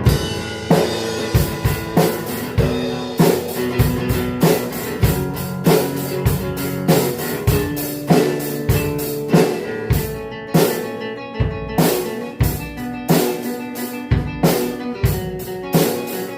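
Instrumental break of a rock band: drum kit keeping a steady beat of bass drum and rimshot or snare hits under electric guitar and bass chords, with no vocal.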